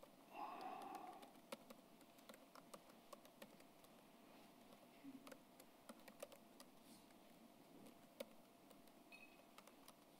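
Faint, irregular clicking of keys on a computer keyboard as a terminal command is typed in.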